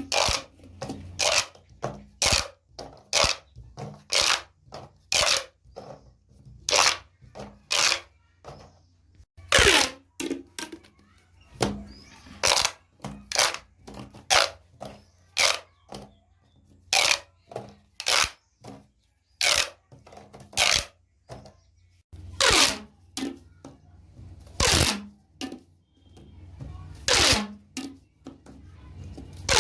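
Plastic pop tubes being stretched and squeezed, giving a long run of short, crackling pops at irregular intervals, roughly one or two a second.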